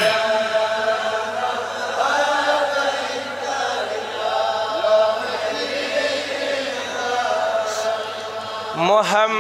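Chanted Kashmiri naat (devotional song in praise of the Prophet), with long drawn-out held notes over a steady low hum. Near the end a single voice starts a new line with a rising note.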